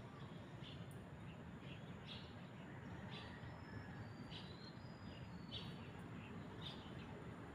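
Small birds chirping faintly, short high calls repeating every half second to a second with a few thin whistled notes in the middle, over a steady low rumble.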